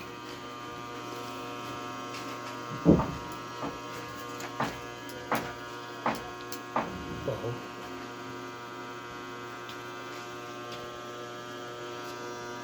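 A steady hum with many even overtones runs throughout. Over it come about seven short, sharp knocks and clicks between about three and seven and a half seconds in; the first is the loudest.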